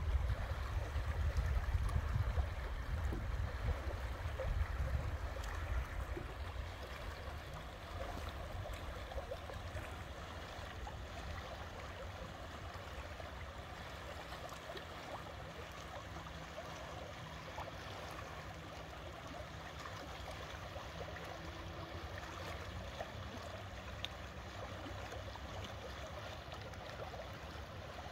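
Water rushing and gurgling steadily, with wind rumbling on the microphone for the first several seconds before easing off.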